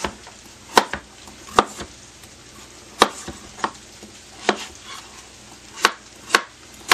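Chef's knife cutting peeled butternut squash into cubes, the blade knocking on a plastic cutting board: about seven separate chops, unevenly spaced.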